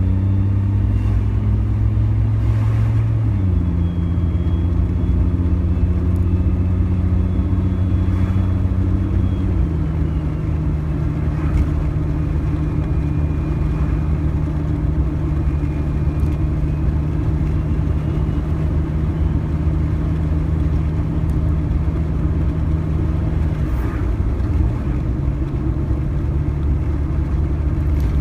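Suzuki Jimny running steadily on the road, its engine note holding level and then stepping down in pitch about 3 seconds in and again about 10 seconds in, then shifting once more near the end.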